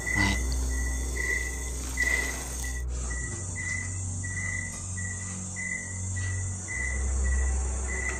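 Crickets chirping in a steady run of short, uneven chirps, about two a second, over a low droning hum.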